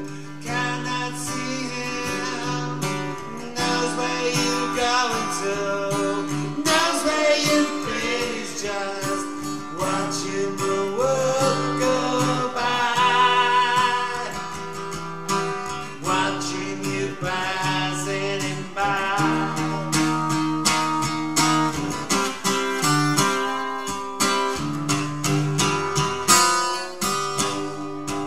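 Live acoustic folk-country song: an acoustic guitar is strummed in steady chords through the venue's PA. A voice sings over it with a wavering vibrato, most clearly in the middle stretch.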